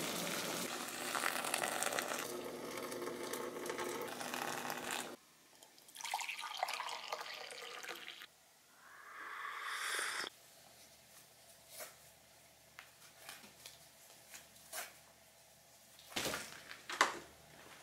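Water at a rolling boil in a saucepan, bubbling steadily for about five seconds. After a cut, liquid is poured, and coffee filling a mug rises in pitch as the mug fills. Then come faint small taps and rustles of running shoes being laced, with one sharper knock near the end.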